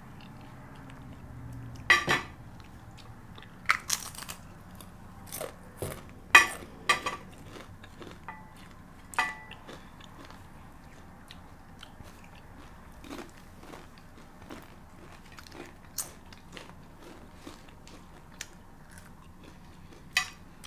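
Crisp chips being bitten and chewed close to the microphone: irregular sharp crunches, loudest and most frequent in the first half, giving way to fainter chewing crackles later.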